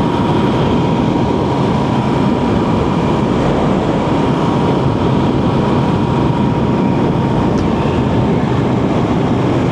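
Motorcycle running at a steady cruising speed: a loud, even rumble with road and wind rush, and a faint steady whine that fades out near the end.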